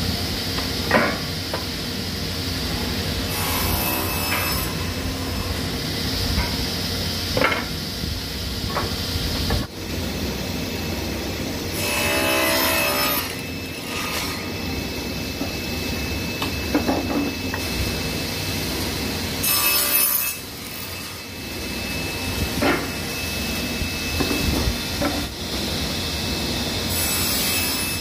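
Sliding table panel saw running with a steady hum while pieces of wood are cut on it. There are four short cuts, each a brief rise into a harsher, higher noise, with clicks and knocks from the boards being set against the fence and table between them.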